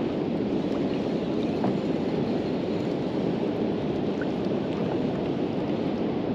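Steady rushing noise of wind and water around a fishing kayak, with a few faint ticks above it.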